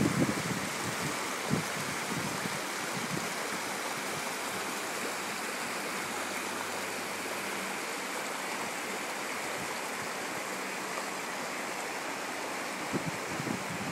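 Creek water babbling over rocks: a steady, even rush of running water.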